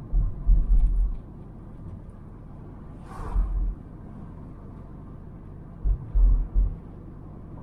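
Steady road noise of a car driving, heard from inside the cabin, with short bursts of low rumbling thumps near the start, about three seconds in and about six seconds in; a brief hiss comes with the middle one.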